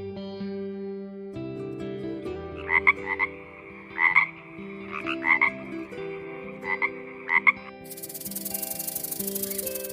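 An animal giving five pairs of short, sharp calls over background music. Near the end comes a fast, pulsing rasping hiss.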